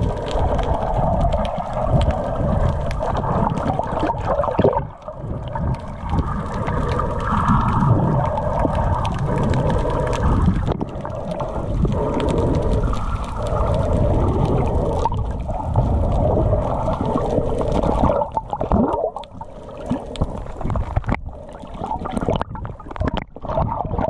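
Muffled underwater rumble and water noise from a camera held under water, with a steady hum running through it; the sound thins out and a few sharp clicks come in over the last few seconds.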